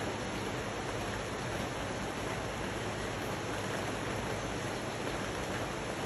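Steady rain falling on rainforest foliage, blended with a rushing river: an even, unbroken hiss.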